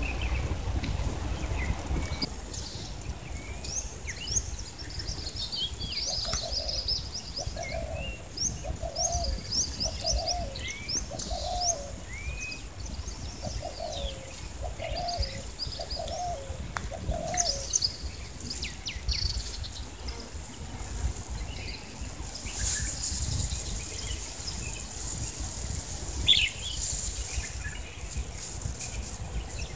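A dove cooing: a phrase of about seven repeated low notes, then after a short pause another of four or five. Small birds chirp and twitter in high, quick notes throughout.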